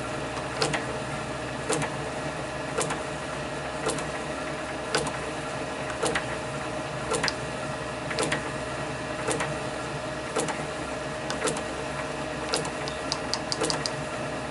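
Small metalworking lathe running with a steady motor hum and a sharp click about once a second, and a quicker run of light ticks near the end.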